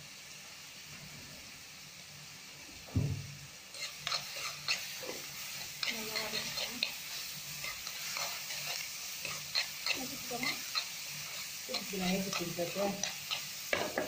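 Chopped onions frying in oil in a kadai, sizzling, while a metal spoon stirs them and scrapes against the pan. The spoon strokes start about four seconds in as a run of short clicks and scrapes, after a single knock on the pan.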